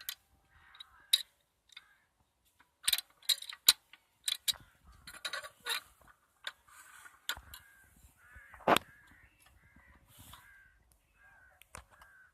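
Scattered sharp clicks and knocks from handling a hand lever winch, the loudest a little under nine seconds in.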